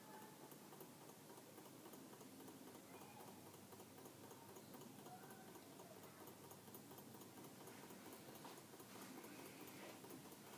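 Toy Stirling engine running on a cup of hot water, turning fast, its mechanism making a faint, rapid, even ticking.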